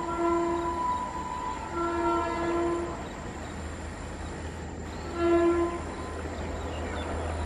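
Air horn of an approaching WAP-7 electric locomotive sounding a series of blasts: one ending under a second in, a quick double blast about two seconds in, and a short blast about five seconds in, over a low steady rumble.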